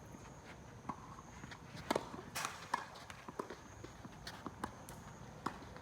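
Footsteps on a tennis court: a string of irregular sharp taps, several in quick succession around the middle.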